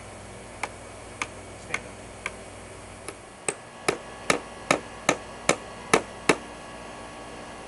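Claw hammer driving a nail into the wooden roof board of a birdhouse: four light taps about half a second apart, then a quicker run of eight harder blows, about two and a half a second.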